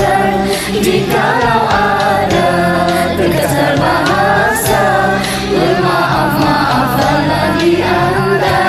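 Several voices singing a Malay zapin song in harmony over steady low bass notes.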